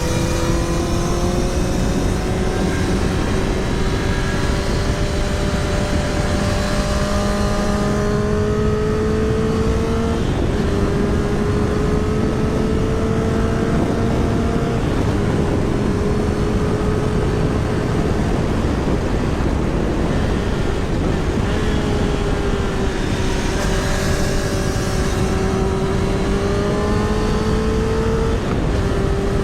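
Motorcycle engine running at road speed, heard from a helmet-mounted microphone, its tone slowly rising and dipping a little several times, with a steady rush of wind noise over the mic.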